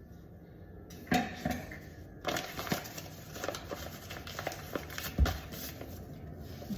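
Measuring cup and mixing bowl being handled as flour is dumped in: scattered light taps and rustling, with a dull knock about five seconds in.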